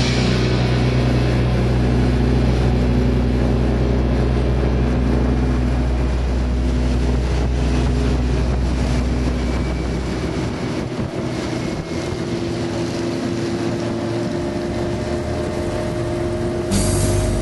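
Motorcycle engine running at road speed, heard from a moving bike with wind rush on the microphone. About ten seconds in, the deep, steady engine note drops away and a higher engine note slowly rises.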